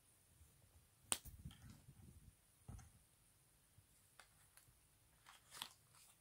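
A few sharp clicks and taps from small cosmetics items being handled, the loudest about a second in, and several lighter ones in the second half.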